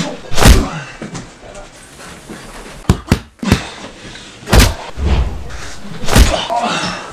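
Movie fight sound effects: about six punch hits, some led in by a quick swish, with a close pair and a third in the middle and strong hits near the start and near the end.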